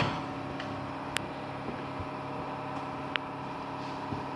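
A steady mechanical hum like an engine running, with two short sharp clicks about two seconds apart.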